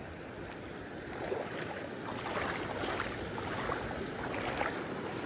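Moving water with irregular splashes that pick up after about a second.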